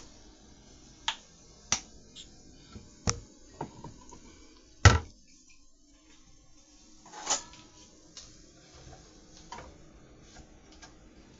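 Kitchen handling sounds: scattered clicks and knocks of utensils and containers against a pot while sauce is worked into chicken, with one louder knock about five seconds in and a brief rustle about two seconds later.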